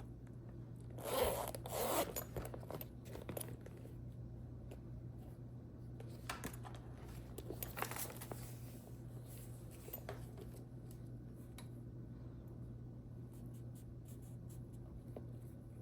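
Metal zipper on a leather shoulder bag being pulled: two short rasps about a second in, two more in the middle, then faint handling clicks and rustles.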